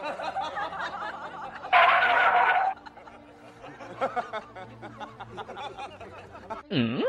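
A person chuckling and giggling, with a louder burst of laughter about two seconds in. Just before the end, a quick swooping sound glides down in pitch and back up.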